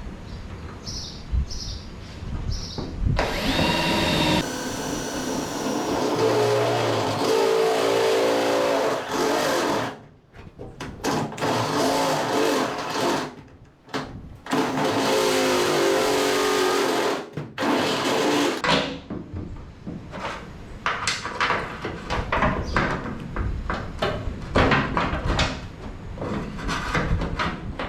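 Electric drill boring a hole through the aluminum hull of a jon boat for a trolling-motor plug, running in three stretches with short stops between, followed by irregular knocks and rattles as the work is handled.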